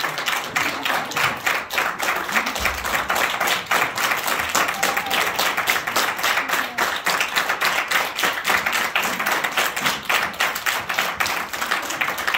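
Audience applauding steadily, with many close individual hand claps.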